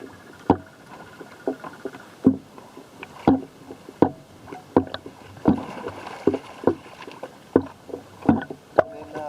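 Pool water slapping and splashing against the camera's microphone beside a homemade foam-and-fabric kayak: sharp slaps about once a second, with a short wash of splashing in the middle.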